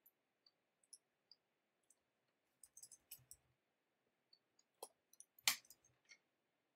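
Faint, scattered clicks of a computer mouse and keyboard as code is copied, pasted and edited, with the sharpest click about five and a half seconds in.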